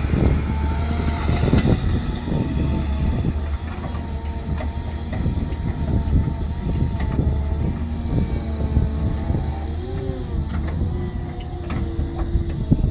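Cat M318D wheeled excavator running, its diesel engine humming steadily under a whine that shifts in pitch, with scattered knocks and clanks.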